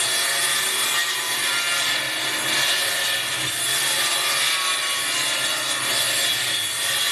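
Table saw running and cutting through a wooden board, a steady sawing noise with the blade's whine.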